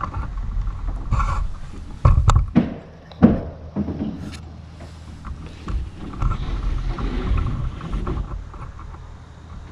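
Irregular thumps and sharp knocks of carpenters working on a roof deck while laying roof sheathing sheets, with a steady low rumble of wind on the microphone. The heaviest thumps come about two seconds in, and a sharp knock follows about a second later.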